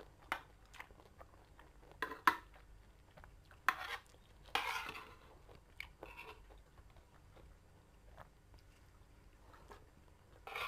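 Metal spoon and fork clinking and scraping on a ceramic plate as rice is gathered up: a few sharp clinks, with a longer scrape about four and a half seconds in, between quiet chewing.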